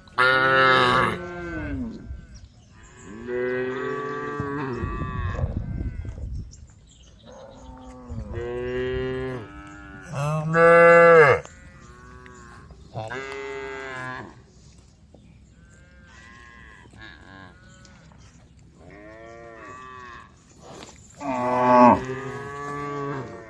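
Cows mooing over and over: about eight separate drawn-out calls, some loud and some fainter, the loudest about eleven seconds in and near the end.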